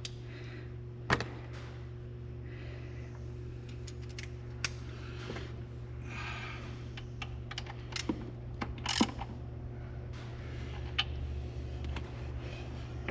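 Hand ratchet clicking in short bursts with a few sharp metallic clinks as intake manifold bolts are tightened, over a steady low hum.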